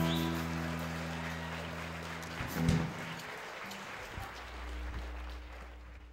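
Audience applauding while the band's last chord rings on and fades. A single thump about two and a half seconds in is the loudest moment, and a low bass note holds near the end.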